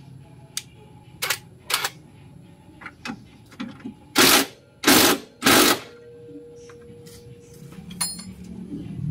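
Cordless impact wrench hammering on exhaust bolts in short bursts: two brief blips, then three louder bursts about four to six seconds in. A short metallic clink near the end.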